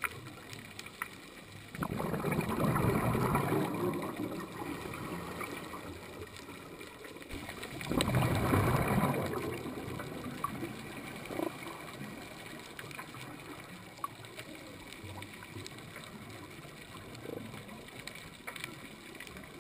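Scuba diver's exhaled breath bubbling out of the regulator twice, about six seconds apart, recorded underwater. Between the breaths there is a low steady hiss with scattered faint clicks.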